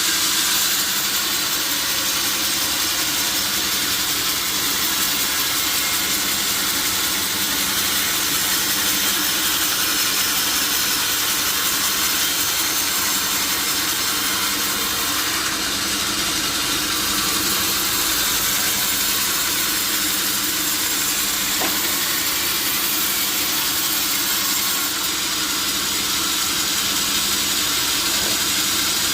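Power saw cutting steadily through a large wooden log: a continuous loud hiss over a steady low hum.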